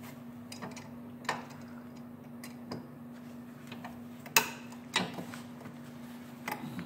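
Scattered light metal clicks and taps as a kickstand return spring is stretched and hooked onto a new adjustable kickstand, the two sharpest a little past the middle, half a second apart. A steady low hum runs underneath.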